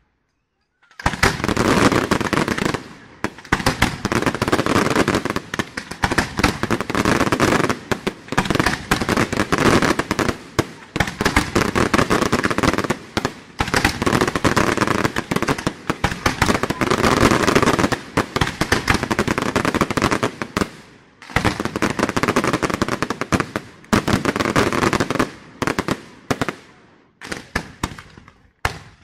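Aerial fireworks display: a dense, continuous barrage of rapid bangs and crackling shell bursts. It starts about a second in, eases in brief lulls every few seconds, and breaks off near the end.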